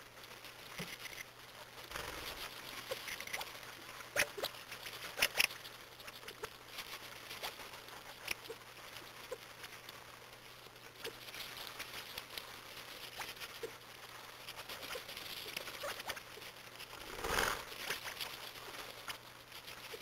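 A flock of California quail feeding in snow: a steady patter of small soft clicks and scratches as they peck and shuffle. There are a few sharper taps about four and five seconds in, and a brief louder rustle near the end.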